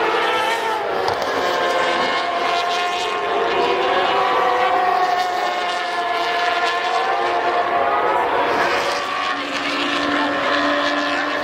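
Several racing motorcycle engines running at high revs around the circuit, their pitches overlapping and rising and falling as the bikes accelerate and slow.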